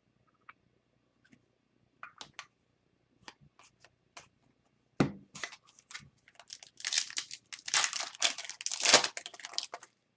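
Light clicks of cards being handled, then a knock about halfway through, followed by loud crinkling and tearing of a foil trading-card pack wrapper being ripped open.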